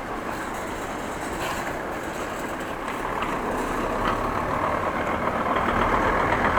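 Road and traffic noise heard from a moving bicycle: a steady wash of noise that swells from about halfway through, with a low motor-vehicle rumble coming in near the end.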